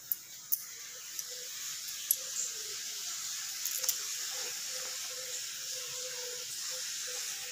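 Quiet room tone: a steady hiss, with a few sharp clicks in the first four seconds and a faint wavering hum underneath.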